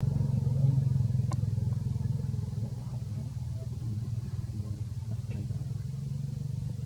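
A motor running steadily with a low hum, with a faint click about a second in.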